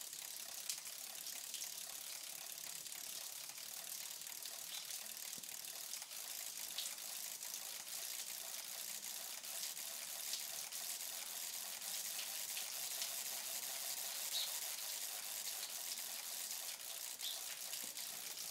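Homemade water printer running: a steady splashing hiss of falling water, with faint scattered clicks.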